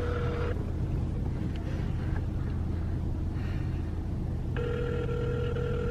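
Telephone ringback tone heard while a call is placed: one ring ends about half a second in, and the next begins about four seconds later near the end. A steady low car-cabin hum runs underneath.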